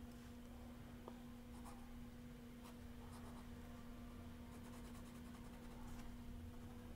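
Ink pen scratching across sketchbook paper in short hatching strokes as a building is sketched, faint, over a steady low hum.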